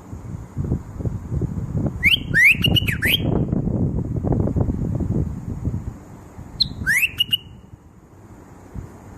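A bird calling in quick rising whistles: a run of about four about two seconds in, then another short pair near seven seconds. Wind rumble on the microphone runs underneath.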